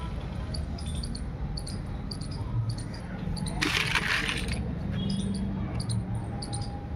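Toy cars clattering against each other briefly, about halfway through, as a hand rummages through a pile of them, over a steady low rumble.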